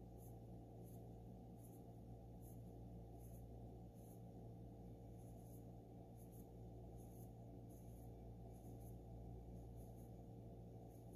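Faint, soft scratching strokes of an eyebrow pencil drawn across the brow, one or two a second at an uneven pace, over a low steady hum.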